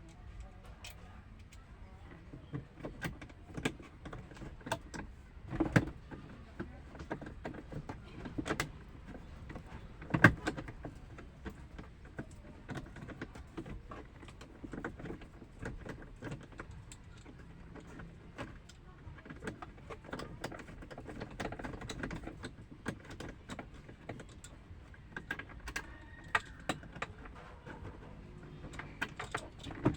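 Irregular clicking, clinking and knocking of hand tools and metal parts during repair work on a car's starter circuit, with louder knocks about six and ten seconds in.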